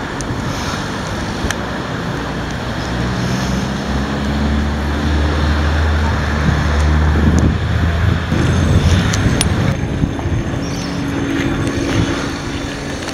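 A motor vehicle's engine running amid broad outdoor rumble and wind on the microphone; the engine hum swells in the middle and a steadier, higher hum takes over near the end.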